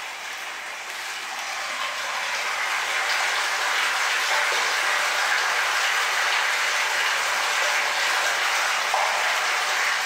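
Water pouring from a hose into a 1,000-gallon underground water tank: a steady splashing rush that grows louder about two seconds in, then holds.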